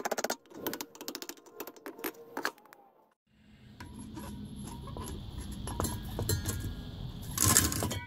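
A hammer tapping a punch through the galvanised tin shell of a small furnace: a quick run of sharp metallic taps and clinks for about the first two and a half seconds. After a brief gap, a steady low rumble with a faint hiss as a handheld gas torch is readied, and a short loud rush of noise near the end.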